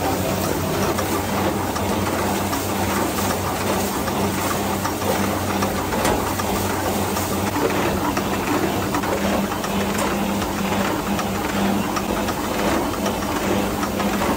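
A machine running steadily, with a constant low hum under a dense mechanical rattle.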